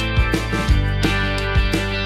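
Background music: an instrumental with sustained notes and a steady beat.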